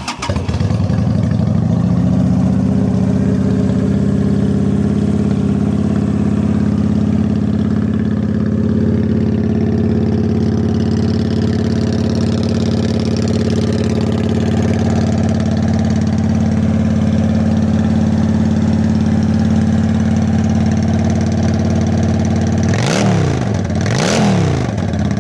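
2005 Honda Shadow Aero VT750CA's 750cc liquid-cooled carbureted V-twin, breathing through aftermarket Vance & Hines staggered chrome pipes, starts up at once and idles steadily. Near the end it is revved twice, each time rising and dropping quickly back to idle, smooth and healthy-running.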